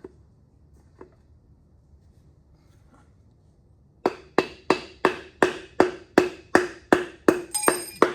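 Rubber mallet knocking on a block of firewood to drive out an LS1 V8's number-one main bearing cap. A few faint taps come first, then a fast, even run of about a dozen sharp knocks, roughly three a second, with a brief metallic ring near the end as the cap works loose.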